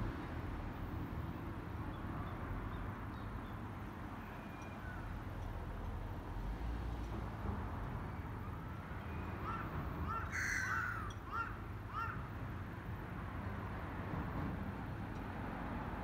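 A crow cawing, a run of several short caws about nine to twelve seconds in, one louder and harsher than the rest, over a steady low background rumble.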